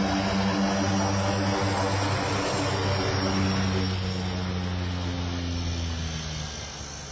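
Twin turboprop engines of a DHC-6 Twin Otter running as the plane moves along the runway: a steady low propeller drone with a faint high turbine whine, fading away through the second half.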